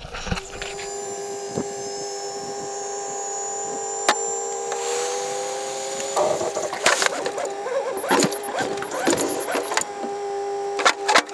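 Hydraulic hoist of a Ford F-350's dump bed running with a steady whine as it raises the loaded bed, one tone rising slowly over the first several seconds. From about halfway through, the wet mud load slides out of the bed with scraping and clattering, and there are several sharp knocks.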